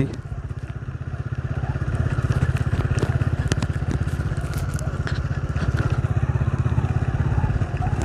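A motor vehicle's engine running steadily with a fast, even pulse, with scattered clicks over it.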